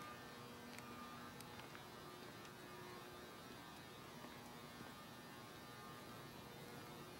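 Near silence: faint steady hum of room tone, with a couple of faint clicks about a second in.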